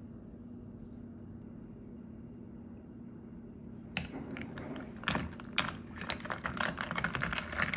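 A spoon stirring iced coffee in a plastic tumbler, ice cubes clicking and rattling against the cup, starting about halfway through and growing busier. Before that only a low, steady room hum.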